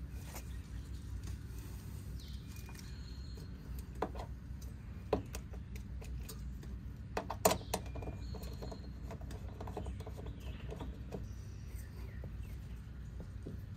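Quiet outdoor background with a steady low hum and a few short bird chirps. A handful of sharp clicks and knocks from handling come between about four and eight seconds in, the loudest at about seven and a half seconds.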